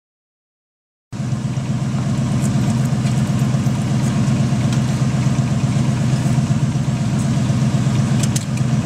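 A motor vehicle's engine idling steadily, starting about a second in.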